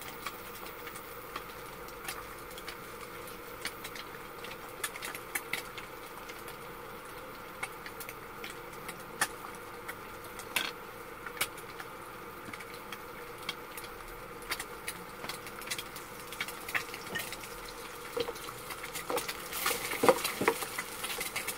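Scattered light clicks and taps of chopsticks against a nonstick frying pan and dishes while eating, over a faint steady hum. Near the end the clatter grows louder and busier as the pan is lifted and moved.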